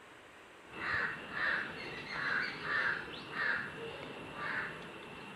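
Crow cawing, six harsh caws in a quick series beginning about a second in, over a steady outdoor background.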